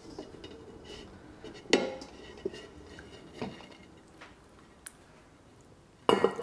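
A ceramic plate knocking against the rim of a stainless steel bowl as it is set on as a lid and lifted off again: a few sharp clinks. The loudest comes a little under two seconds in, a smaller one comes about halfway, and a cluster comes near the end.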